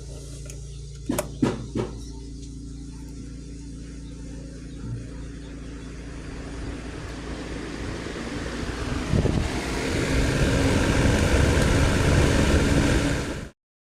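A car's electric radiator cooling fan running over a steady engine hum, with a few sharp clicks about a second in. From about six seconds a rushing whir builds and grows loud, then cuts off suddenly near the end. This is the fan noise the owner is showing as a fault.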